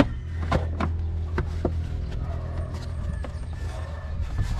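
Plastic engine-bay fuse box cover being handled and fitted back into place: a scattered series of sharp clicks and knocks over a steady low hum.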